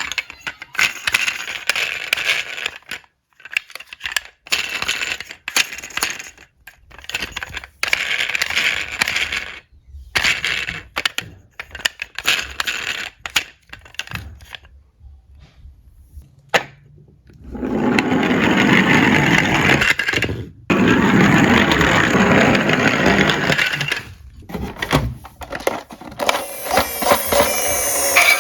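Diecast toy cars rolling down a slope and clattering against each other: repeated bursts of small metal rattles and clicks, with a longer stretch of continuous rolling noise past the middle.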